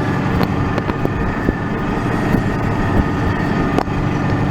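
An 8450 tractor's diesel engine running steadily, heard from inside the cab while it pulls a loaded grain cart, with a faint steady whine and a few light clicks and rattles.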